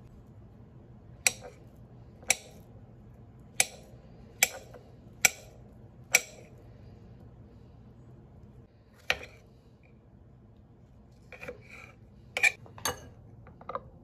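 Kitchen knife slicing a banana on a ceramic plate, the blade tapping the plate at each cut: sharp clicks about a second apart, then a quicker cluster of taps near the end.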